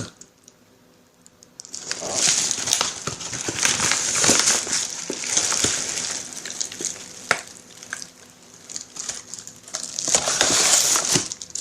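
Mailing envelope packaging crinkling and rustling as it is handled, with small sharp clicks mixed in. It starts after a second or two of quiet and keeps going.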